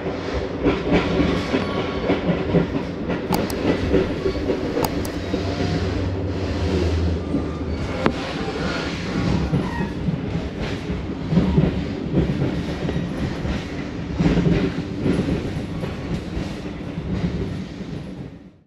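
Metra commuter train running, heard from inside the passenger coach: steady wheel-and-rail rumble that swells unevenly, with a few sharp clicks. The sound fades out at the very end.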